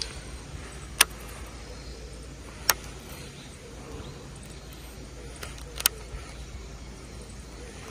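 Four sharp clicks from a baitcasting reel being handled, about a second apart at first and then two close together near the end, over a low steady rumble.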